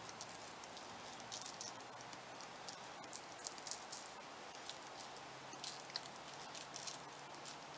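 Cinnamon sugar shaken from a shaker bottle, the granules pattering in soft, irregular bursts onto dough twists and parchment paper, over a faint steady low hum.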